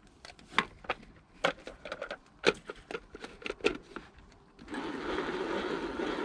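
Plastic containers and a lid clicking and knocking as they are handled and the lid is fitted onto a hand-pulled food chopper. About two-thirds in, the chopper starts a steady whirr as its handle is pulled and the blades spin through the pico de gallo.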